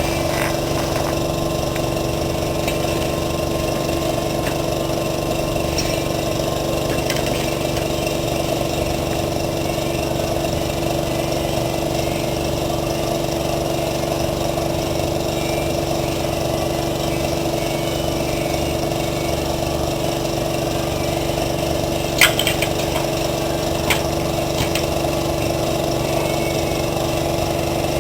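A motor running steadily at a constant pitch, with two sharp metallic clicks about three-quarters of the way through.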